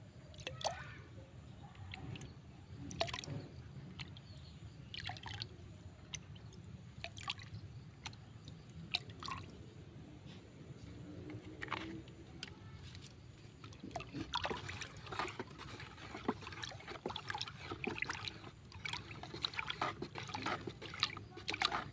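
Small amounts of fermented rice-washing water dripping and trickling from a bottle cap into a plastic bucket of water, in scattered splashes, then denser splashing and sloshing as the mix is stirred with a stick near the end.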